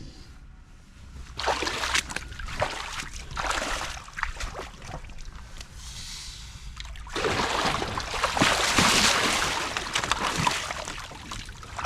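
Water splashing and sloshing against a kayak as a large white sturgeon thrashes alongside. Irregular splashes come in the first few seconds, then a longer, louder rush of churning water from about seven seconds in until near the end.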